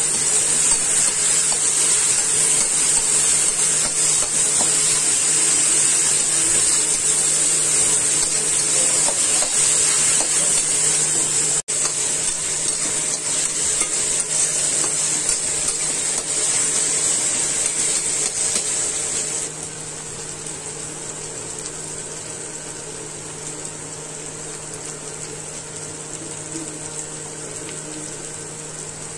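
Chopped onions and tomatoes sizzling in oil in a kadai while a steel slotted spatula stirs and scrapes them against the pan. The sizzle breaks off for an instant just before halfway and runs quieter from about two-thirds through.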